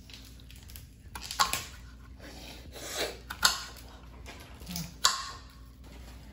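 A woman's short, sharp breaths and sniffles, about six in a row, the last one near the end the sharpest, as she reacts to a mouthful of very spicy food.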